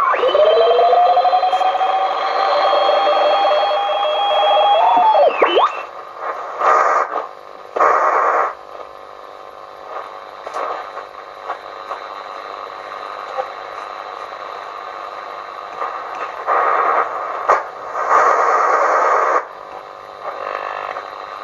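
Shortwave receiver hiss and static from a WS 38 Mk2 valve army transceiver as its tuning dial is turned. Whistling tones rise slowly and then sweep away about five seconds in, and bursts of louder noise come and go after.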